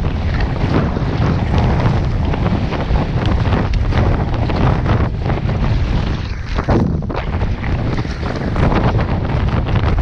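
Strong gusty wind buffeting the microphone of a camera mounted on a kayak, loud and unbroken, with choppy water splashing against the hull.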